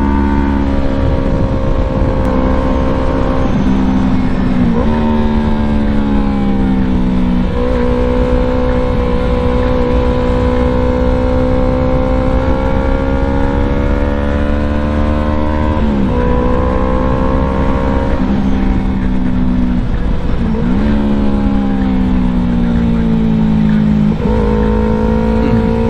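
Yamaha YZF-R3's parallel-twin engine running on the move, its pitch jumping and dropping several times as the gears change, over a steady low rush of wind noise.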